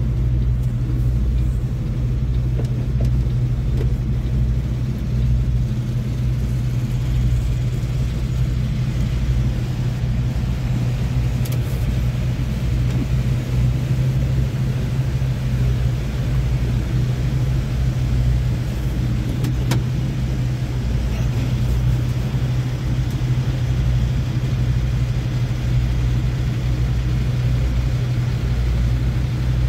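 Semi truck's diesel engine running steadily, a constant low hum with no change in pitch.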